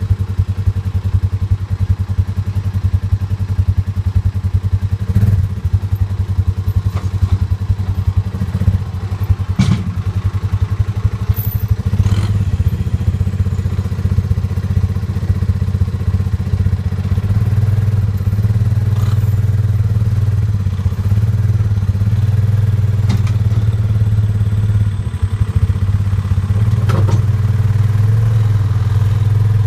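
Engines running steadily during a chain tow of a utility vehicle stuck in mud by a loader tractor, the hum growing fuller about halfway through as the pull takes up. A few sharp knocks and clanks break in now and then.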